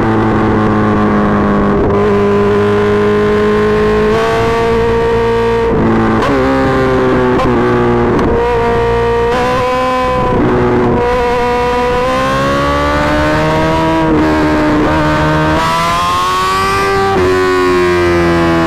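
Motorcycle engine and exhaust running under load, its pitch holding, then stepping and gliding up and down as the revs change.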